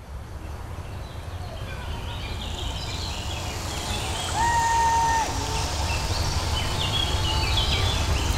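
Synthesised music intro fading in: a steady low drone, a slow falling sweep and short high stepping synth notes, with one clean held tone about halfway.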